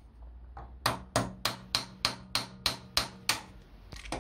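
Quick, evenly spaced metal-on-metal taps, about three a second, starting about a second in. The tool is knocking the slag off a fresh weld joining a washer to a snapped brake-caliper bleed nipple.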